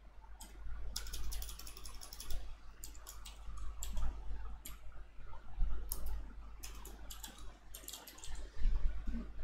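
Computer keyboard being typed on: irregular runs of key clicks as code is entered and deleted.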